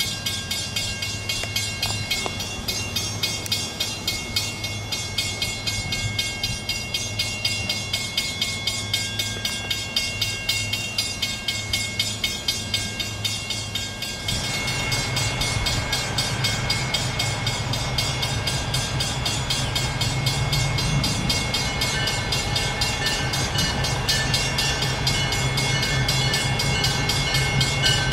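A train rolling past, its wheels clicking over rail joints in a quick, even rhythm. About halfway through, a louder, deeper steady running sound sets in and builds toward the end.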